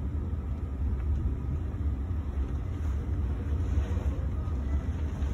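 Thunderstorm wind and rain heard through a window as a steady low rumble.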